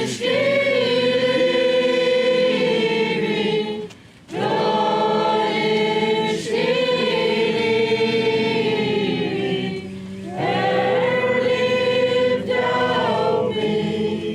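A choir singing a slow hymn in long held notes, in three phrases with short breaks between them.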